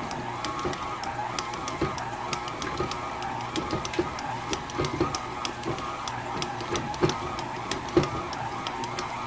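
KitchenAid Artisan stand mixer kneading bread dough: a steady, slightly wavering motor whine, with irregular soft knocks as the dough turns and hits the bowl.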